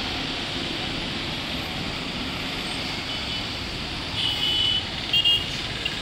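Steady noise of busy road traffic. From about three seconds in, a run of short, high-pitched beeps cuts through it several times.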